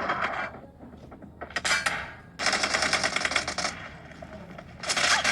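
Rapid automatic-gunfire sound effects played back through a small homemade phone speaker, in four bursts of dense rapid clicks, the longest over a second.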